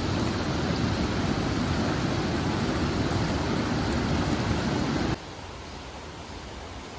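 Mountain stream water rushing in a steady wash of noise, which cuts off suddenly about five seconds in to a quieter, similar background hiss.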